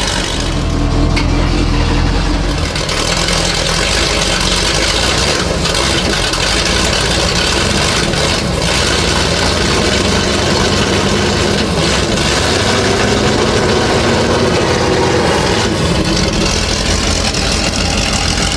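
A new Chevrolet engine in an M5 Stuart light tank's engine bay running at idle just after being started for the first time.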